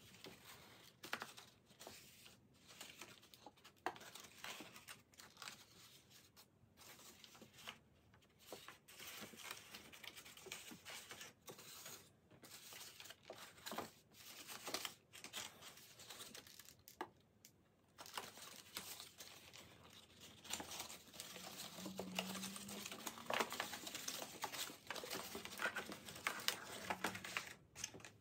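Folded paper rustling and crinkling in short, irregular bursts as a paper kaleidocycle ring is turned through itself by hand. The rustling gets busier and louder in the second half.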